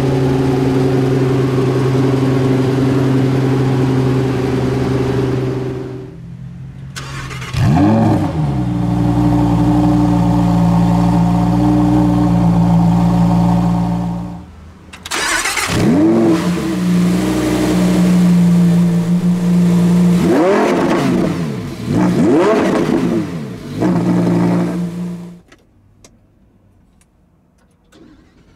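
Supercar engines in a montage. A Pagani Huayra BC Roadster's V12 idles steadily, then an engine starts with a sharp flare and settles into a high idle. Later a Lamborghini Huracán EVO's V10 starts with a flare, idles, and is blipped twice, each blip rising and falling, before the sound cuts away to near quiet.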